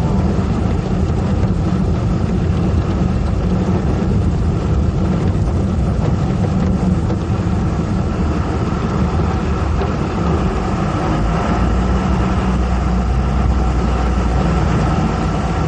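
Heavy coal-mine machinery running steadily with a deep rumble and a faint steady high tone.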